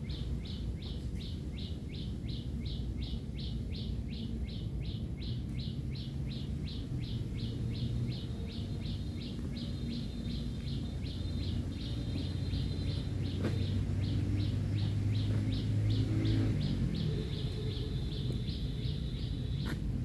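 High-pitched chirps repeated evenly, about three a second, from a small animal calling in the grass. Now and then they run together into a continuous trill. A low rumble lies underneath and grows louder a little past the middle.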